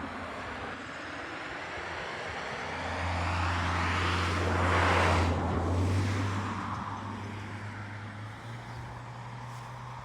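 A motor vehicle passing by, growing louder to a peak about halfway through and then fading away, with a steady low engine hum.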